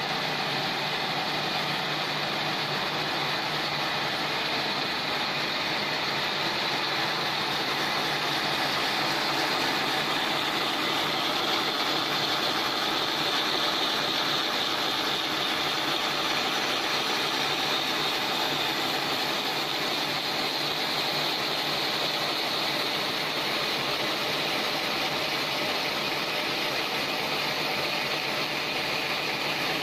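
Scrubber-making machines running, a steady, unchanging mechanical noise.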